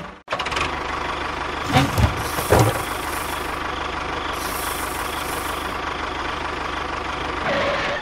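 Tractor engine idling steadily with a fast low chug. A few knocks come about two seconds in, and two bursts of hiss follow around three and five seconds in.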